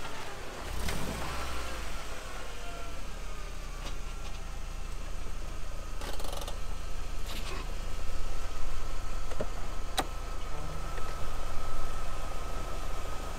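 A lifted Volkswagen New Beetle's engine idling steadily, with a few knocks and a sharp click, about ten seconds in, as the driver's door is opened.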